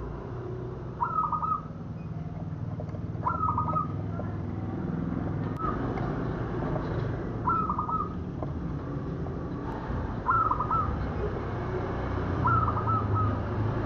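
Zebra dove (perkutut) singing: a short, stuttering cooing phrase repeated about every two seconds, six times, over a low steady background rumble.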